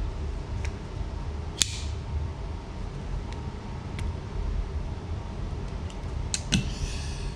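Steady low background rumble with a few small, sharp clicks scattered through it, the sharpest about a second and a half in, and a brief rustle near the end.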